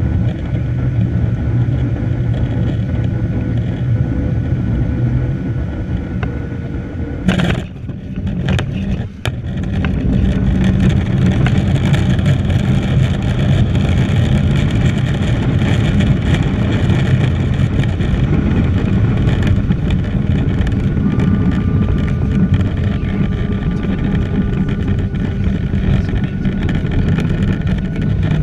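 Cabin noise of a Boeing 737-700 with CFM56-7B engines landing: steady engine and airflow noise on final approach, then a sharp thump about seven seconds in as the wheels touch down. From about ten seconds in comes a louder, steady rush as the jet rolls out and brakes hard on a short runway.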